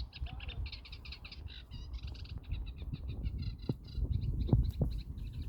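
A flock of small birds chirping and twittering rapidly without pause, over a low rumble, with a few dull thumps about two-thirds of the way through.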